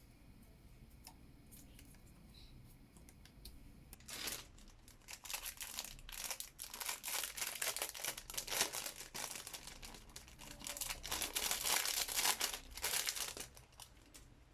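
Dense, irregular crinkling and crackling that starts about four seconds in and stops shortly before the end, after a faint, quiet opening.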